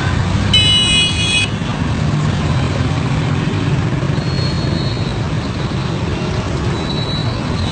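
Busy road traffic: motorcycle and car engines rumbling steadily, with a vehicle horn honking for about a second near the start and fainter horns sounding later.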